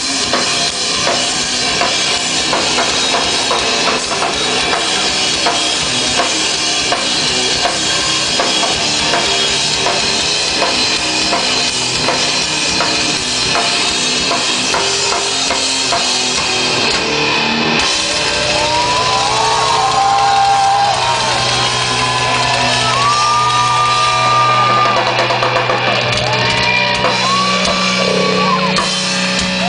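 Rock band playing live: busy drum kit for the first half, then a guitar solo of bent, held notes over sustained bass notes from a little past halfway.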